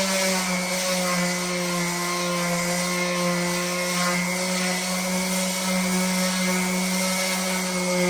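Bauer 2.8 amp random orbital palm sander running steadily while sanding with 80-grit paper: an even motor hum with a hiss of abrasive on the surface.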